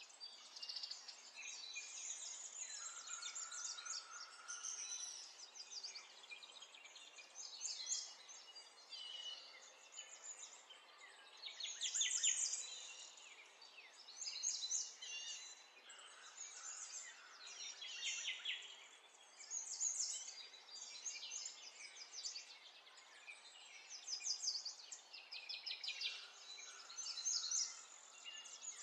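Birds singing, in short bursts of quick trilled notes that come every two seconds or so, over a faint steady hiss.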